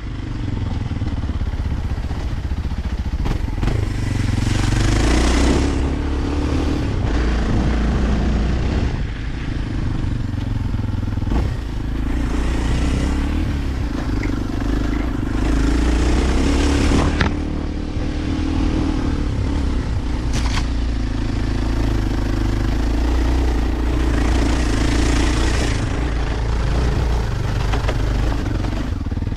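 Kawasaki KLX 230 dirt bike's air-cooled single-cylinder four-stroke engine running under way, the throttle opening and easing off every few seconds. Scattered knocks and clatter cut through it.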